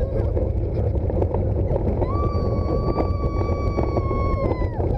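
Roller coaster ride: a steady loud rumble of the train with wind on the microphone, and about two seconds in a rider lets out one long high scream held for nearly three seconds that drops away at its end.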